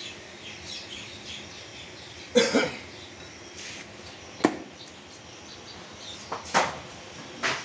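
Butcher's knife cutting through a beef front leg on a wooden chopping block: a few sharp knocks of the blade against meat and wood, about four and a half seconds in and again near the end. There is a louder short noise about two and a half seconds in.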